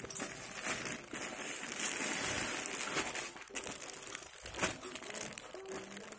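Thin plastic crinkling and rustling as a plastic courier mailer and a clear plastic garment bag are handled, a steady crinkle broken by many sharp crackles.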